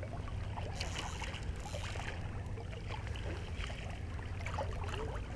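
Steady low rush of fast-moving tidal current, heard muffled, with scattered small clicks and gurgles.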